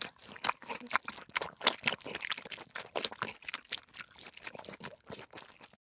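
Crackling, crunching noise effect: a dense, irregular run of sharp cracks and crackles that cuts off suddenly near the end.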